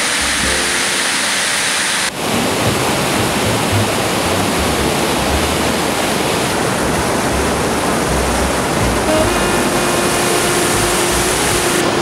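Rushing white water from a cascading creek, changing abruptly about two seconds in to the fuller, steady rush of river rapids over rock. Soft music with long held notes plays faintly underneath, most noticeably near the end.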